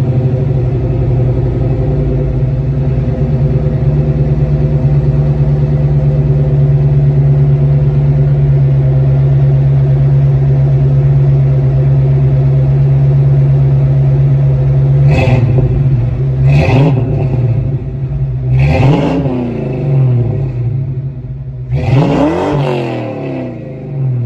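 Ford Mustang GT 5.0 V8 with long-tube headers, an X-pipe and Flowmaster 40 series mufflers idling steadily, then revved four times in the last third. The revs are three quick blips and a longer, higher rev near the end, each rising and falling back to idle.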